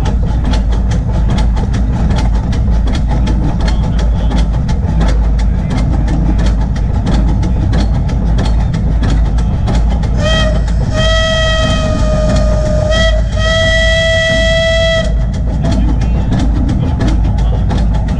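Crown 4-4-0 coal-fired live steam locomotive under way, a steady rumble with rapid clatter of wheels on the rails. About ten seconds in its steam whistle blows three times: one short blast, then two long ones.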